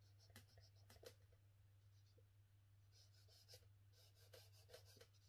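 Faint, scratchy drawing strokes on paper, in short runs of quick strokes at the start and again about three and four seconds in, over a low steady hum.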